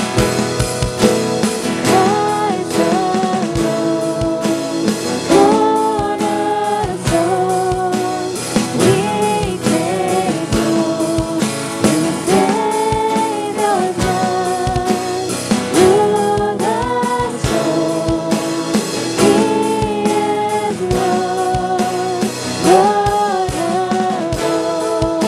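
Live worship music: voices singing the chorus of a contemporary hymn over guitar and drum kit.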